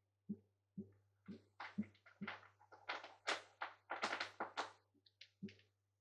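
Muffled low thumps repeating about twice a second, the kind of drum-like beat heard through this recording. Through the middle comes a cluster of sharper, hissy rustling or scraping noises, over a faint steady hum.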